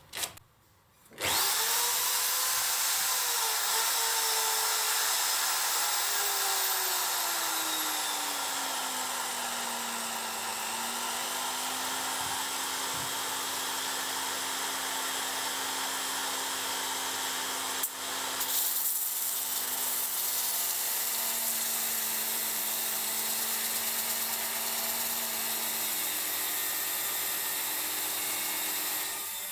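Electric power tool motor starting up about a second in and running continuously, its pitch falling over the first several seconds and then holding fairly steady, with a brief click about two-thirds of the way through.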